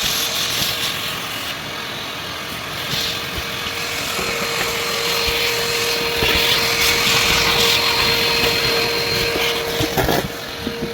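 Vacuum cleaner running, a steady rushing noise that starts abruptly. A steady whine joins it about four seconds in, and the noise drops away near the end.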